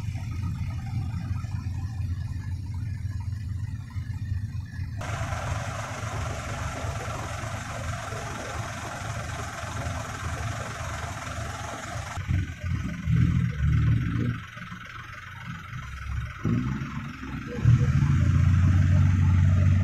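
Diesel dump truck engines running, with a few brief louder surges past the middle. Near the end a louder engine runs steadily close by.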